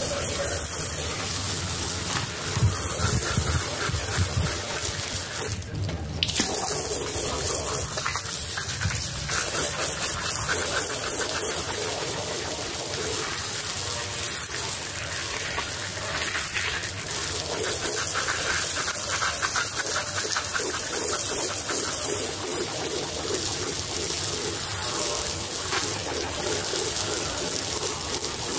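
High-pressure water jet spraying onto a soaked rug: a steady hiss and splatter of spray as the jet sweeps across the pile, with a brief break about six seconds in.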